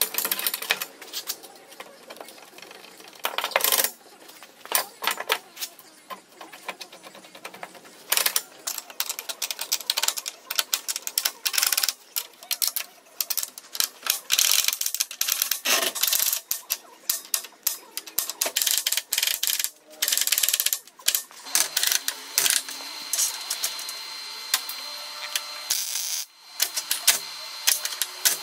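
Rapid, irregular metallic clicks and clinks of iron door hardware, a forged latch handle and a strap hinge, being handled and fastened to a wooden door.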